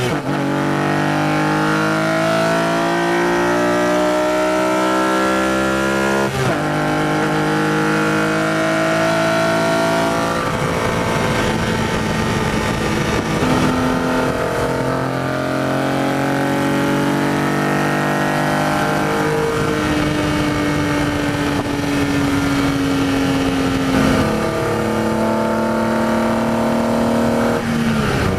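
BMW E46 M3's S54 straight-six engine and CSL-style carbon fibre airbox intake, pulling through the gears in street driving. The note climbs steadily in pitch and drops sharply at upshifts, once about six seconds in and again near the end, with stretches of steadier cruising between.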